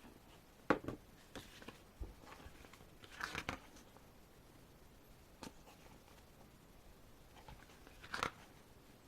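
Pages of an album photobook being turned and handled: a few short paper rustles and light taps, with a sharp tap under a second in and the longest rustles around three seconds and eight seconds in.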